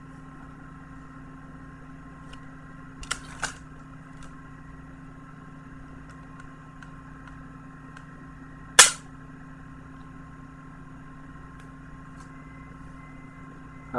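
Plastic Blu-ray disc case being handled: a pair of light clicks about three seconds in, then one sharp snap a little past the middle, over a steady low hum.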